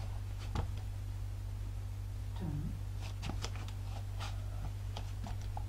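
Room tone: a steady low hum with a few faint clicks and rustles of small movements.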